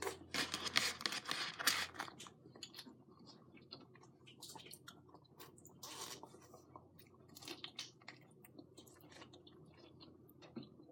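Close-up chewing and crunching of food, with a louder, denser stretch of crunching in the first two seconds, then softer, scattered chewing and mouth clicks.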